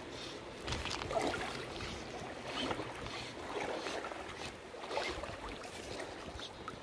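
River water sloshing and splashing around a wading angler in irregular surges, four or five of them about a second apart, over the steady rush of the current.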